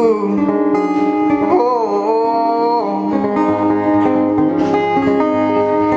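A man singing a long wordless 'ooh' over acoustic guitar: a live acoustic song, the voice holding and bending notes.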